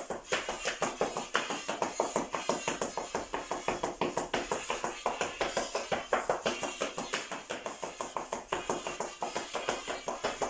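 Oaxacan folk dance music playing, with a quick, even run of sharp taps, several a second, fitting shoes stamping zapateado footwork on a tile floor.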